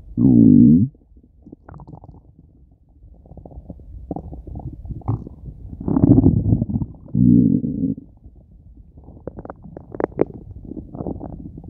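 A hungry human stomach growling: a loud pitched growl at the start, two long rumbles about six and seven seconds in, and runs of short gurgles and pops between them.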